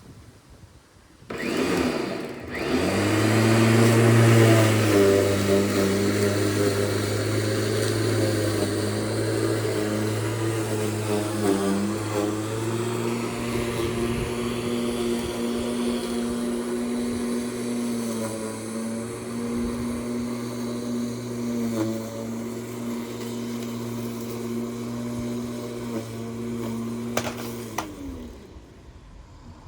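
Lawn mower engine starting up about a second in, running steadily, then shut off near the end, its pitch falling as it winds down.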